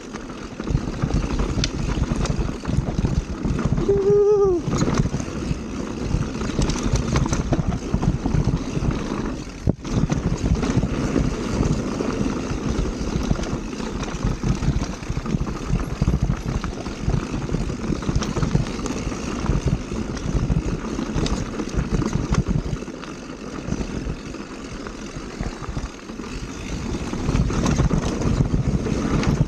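Wind buffeting an action camera's microphone and mountain bike tyres rolling and rattling over a dirt trail at speed, a steady, churning rumble that swells and eases with the riding.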